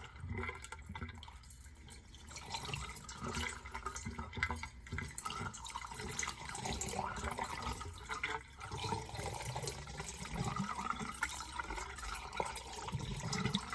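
A hot water and white vinegar solution pouring through a funnel into a 3/4-inch PVC air conditioner condensate drain line, the liquid running and splashing as the capped pipe fills up.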